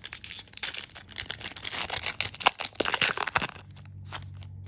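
Foil wrapper of a Pokémon booster pack crinkling and tearing as it is ripped open by hand. The dense crackle stops about three and a half seconds in, leaving a low steady hum.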